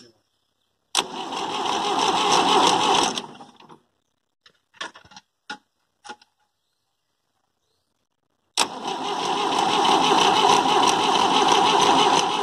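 Massey Ferguson 85 tractor's diesel engine cranked over by its starter motor in two runs, one of about two and a half seconds and a longer one of about five seconds, with a few short clicks between them. The engine has stood unused for five years and is not yet starting.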